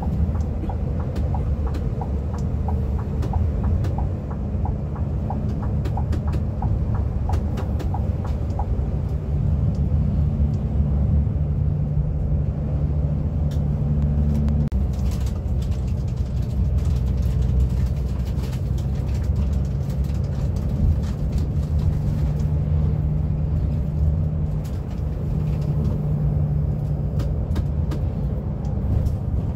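Scania K360iB coach under way: a steady low engine hum with road noise, scattered rattles and clicks. A light regular ticking runs through the first part, and the engine note shifts about halfway through.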